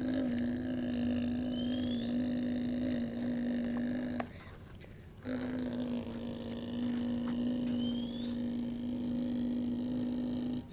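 Small electric motor of a radio-controlled construction vehicle running with a steady buzzing hum, stopping about four seconds in for a second, then starting up again at the same pitch.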